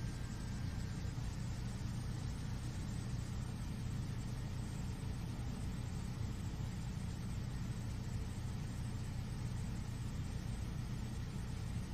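Steady low engine rumble with a hum, unchanging throughout.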